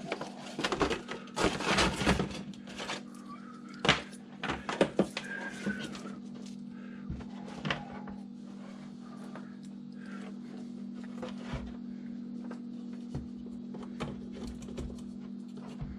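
Clicks and knocks from hands handling an opened ATX computer power supply and a jumper wire on a workbench. They come thick for the first few seconds, then thin out to the odd click, all over a steady low hum.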